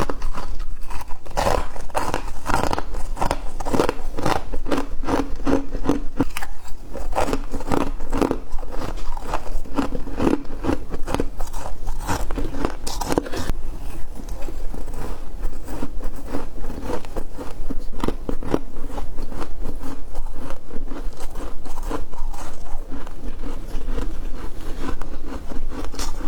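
Freezer frost being bitten and chewed: a rapid, continuous run of crisp crunches, heavier in the first half and lighter from about halfway on.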